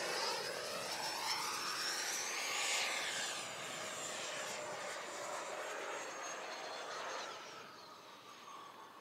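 The 64mm electric ducted fan of an XFly T-7A Red Hawk foam RC jet whining in flight as the model makes a pass. It sounds much like a real jet. Its pitch slides down and it fades near the end as the jet moves away.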